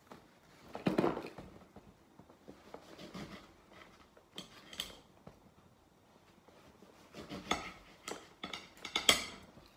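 Scattered light knocks and clinks of a plate being handled as lemon slices are arranged on it. The loudest knock comes about a second in, and a quick run of taps comes near the end.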